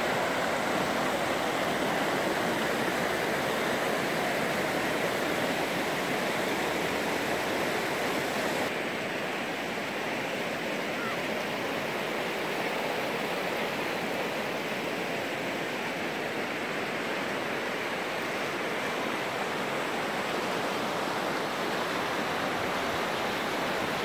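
Virgin River running high and fast over rocky rapids: a steady, even rush of water, a little softer from about nine seconds in.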